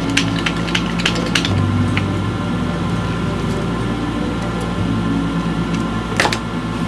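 Metal clicks and clinks of a hand crimping tool as a copper cable lug is seated in its die and crimped onto heavy battery cable. There is a cluster of clicks in the first second or so and one sharp click about six seconds in, over a steady low drone.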